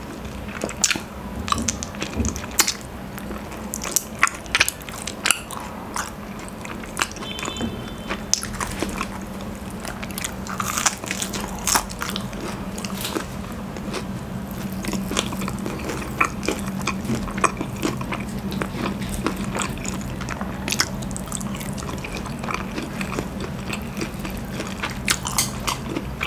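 Close-miked eating: crunchy bites and chewing of crispy breaded fried chicken and honeycomb, with many sharp crackles and clicks over a faint steady hum.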